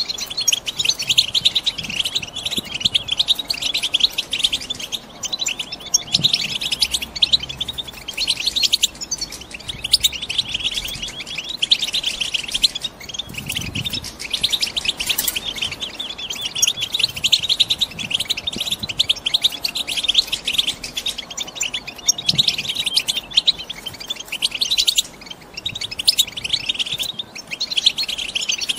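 European goldfinches, females, twittering: a dense, fast run of chirps that continues with only brief pauses. This is the chattering call used to stir a caged male goldfinch into song.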